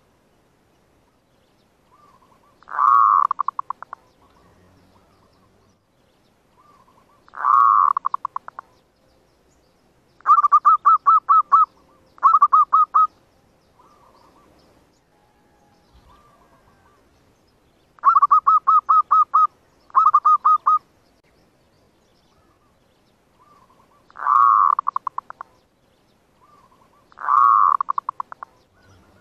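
Zebra dove (perkutut/merbuk) cooing in about eight phrases a few seconds apart. Some phrases are a swelling coo that breaks into a quick stutter of notes; others are a fast run of clipped notes. It is the lure (pikat) call of a decoy dove, used to excite wild zebra doves and draw them in.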